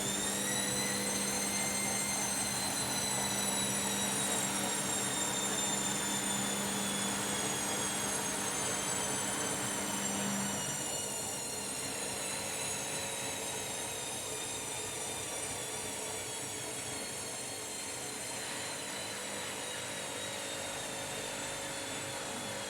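Washing machine motor whining during a spin, rising in pitch for about the first two seconds and then slowly falling, with the hum of the drum turning underneath.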